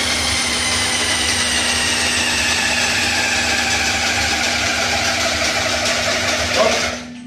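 Handheld pneumatic rotary tool on an air hose, worked against the steel wall framing, running with a high whine that sinks slowly in pitch and stops suddenly about seven seconds in.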